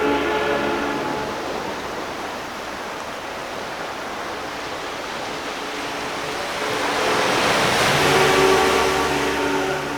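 Storm surf on a beach: a steady rush of breaking waves, swelling to its loudest as a wave breaks about eight seconds in.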